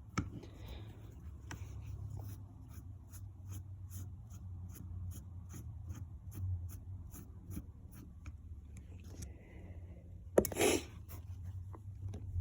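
Light, evenly spaced mechanical clicks, about four a second, over a low steady hum, stopping a few seconds before the end. A short loud burst of noise comes near the end.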